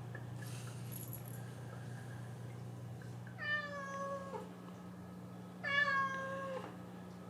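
A cat meowing twice, each meow about a second long, holding its pitch and then dropping at the end, over a steady low hum.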